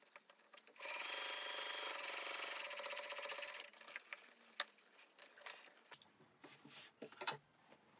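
Brother electric sewing machine running for about three seconds as it stitches a pocket onto cotton fabric, a fast, even rattle of the needle mechanism that starts about a second in and stops. It is followed by a few sharp clicks and light rustling as the fabric is handled.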